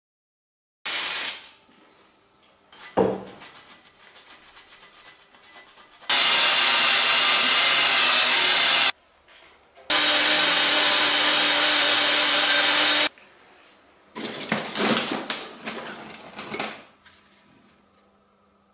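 Workshop sounds: a sharp metallic hit about a second in, then a power tool running loud and steady in two spells of about three seconds each. Near the end comes an irregular clatter of metal bicycle parts (spokes, rims and tubes) being rummaged through in a scrap heap.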